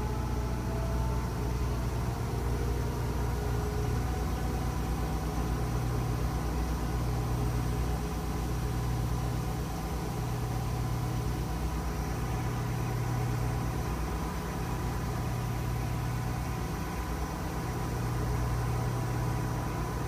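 GE front-loading washing machine spinning a light load of three towels at high speed in its drain-spin cycle: a steady motor-and-drum hum with a low throb that swells and fades about every two seconds, over a faint whine.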